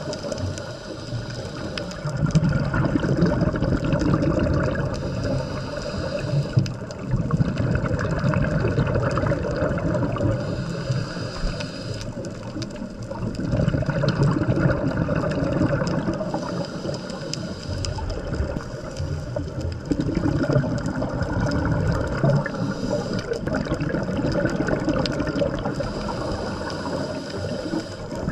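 Bubbling and gurgling water heard underwater during a scuba dive, most likely from a diver's regulator exhaust bubbles, swelling and fading in waves.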